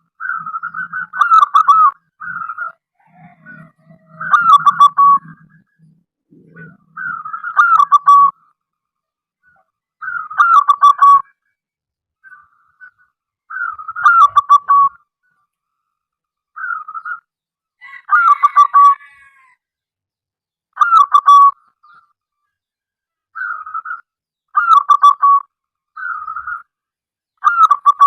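Zebra dove (perkutut) singing: a series of short, rapid stuttering coos, each about a second long, repeated every two to three seconds. It is a lure call of the kind used to draw other zebra doves into calling.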